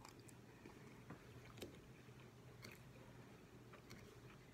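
Faint close-up chewing of a mouthful of food, with a few scattered soft mouth clicks over a low steady hum.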